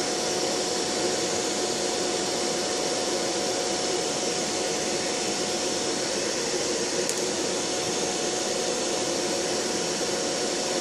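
Loud electric fan running steadily: an even rush of air with a faint steady whine.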